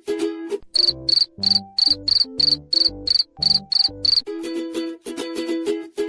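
Cricket-chirping sound effect, the stock 'awkward silence' cue: high, evenly spaced chirps, about three a second, for roughly three seconds. A short plucked-string tune plays before the chirps and comes back after them.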